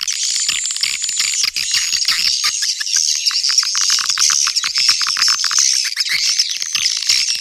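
Swiftlet calling-sound recording (suara panggil walet), the lure played to draw swiftlets into a nesting house. It is a dense, unbroken chorus of high chirps and rapid clicking twitters, with nothing in the low end.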